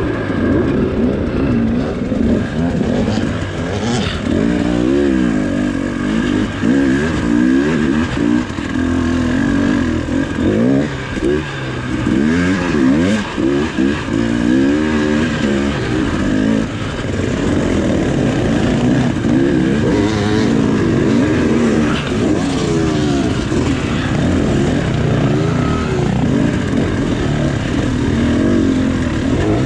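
Dirt bike engine revving up and down in short bursts on a slow, technical rock climb, its pitch rising and falling every second or two. A few sharp knocks stand out, one near 4 seconds and more around 12 to 13 seconds.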